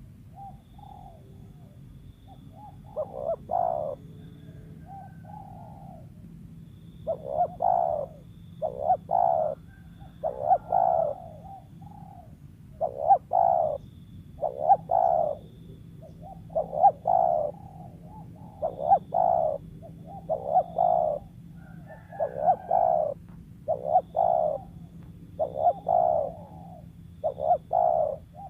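Spotted dove cooing repeatedly. The coos come in phrases of two or three notes about every two seconds, fainter at first and louder from about three seconds in.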